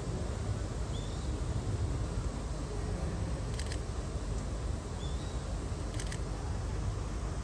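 Outdoor ambience with a steady low rumble, broken twice by a quick double click like a camera shutter, and a few faint short high chirps.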